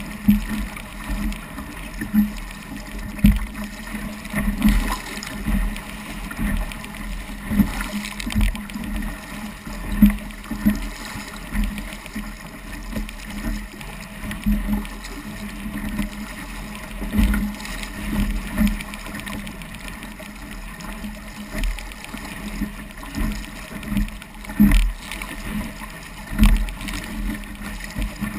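Small Sabot dinghy's hull slapping through choppy waves: irregular low thumps every second or so over a steady rush of water along the sides.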